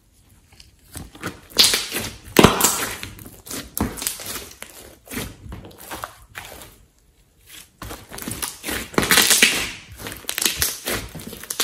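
Thick slime with clay mixed in, stretched, folded and pressed flat by hand, giving wet clicks, pops and crackles. These come in spells, loudest around two seconds in and again around nine seconds in, with a short lull between.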